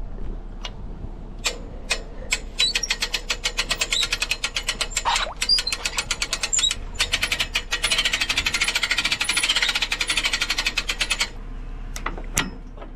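Rapid, even mechanical clicking, many clicks a second, that starts about two seconds in and stops suddenly about eleven seconds in, with a few single clicks before and after.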